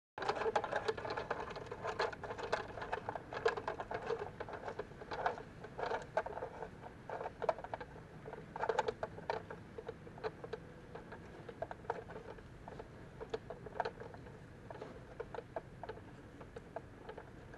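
Fireworks mounted on a toy helicopter's rotor blades burning with dense, irregular crackling and popping over a steady whir, the crackles thinning out over the last several seconds.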